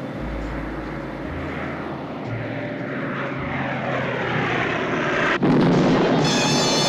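Twin-engine propeller plane's engines droning and growing louder as it flies over, then a sudden loud explosion about five and a half seconds in as the plane blows up in mid-air.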